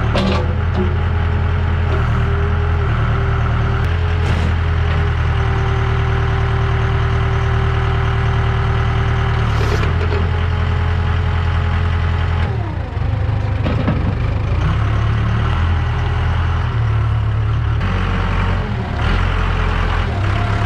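Case 580 Super K backhoe loader's diesel engine running steadily; about two-thirds of the way through its speed drops and then picks up again.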